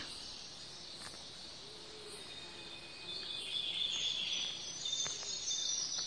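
Rainforest insects buzzing in a steady high band that grows louder about halfway through, with a couple of faint low calls early on.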